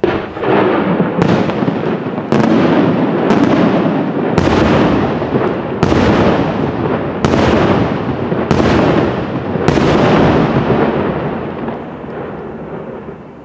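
Aerial firework shells bursting in a rapid series: about nine loud bangs a second or so apart, each trailing off in a long echoing rumble. The bangs stop about ten seconds in and the rumble fades away.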